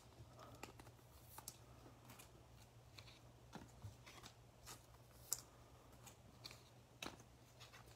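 Faint clicks and slides of trading cards being handled and one laid down on a tabletop, with a sharper click about five seconds in, over a low steady hum.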